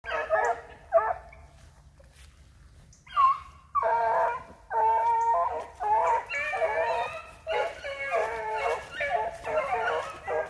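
A pack of petits bassets griffons vendéens baying on a rabbit's trail. A few cries come first, then a pause of about two seconds, then continuous overlapping baying from several hounds at different pitches.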